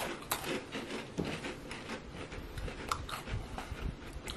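Biting into and chewing crunchy chocolate biscuits, with small irregular crunches.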